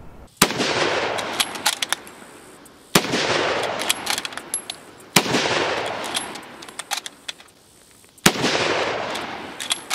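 Four shots from a Lee Enfield No.1 Mk III SMLE rifle in .303 British, fired about two to three seconds apart, each followed by a long fading echo. Fainter clicks between the shots are the bolt being worked.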